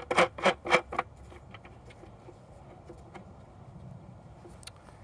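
Hands rubbing and scraping against the wooden sections of a redwood alphorn while a nut is fitted onto the joint's connecting rod: four quick strokes in the first second, then only faint handling ticks.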